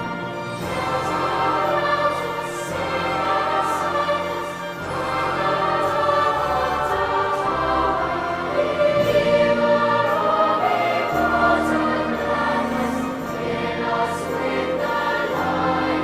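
Choral church music: sustained sung chords that change every second or so.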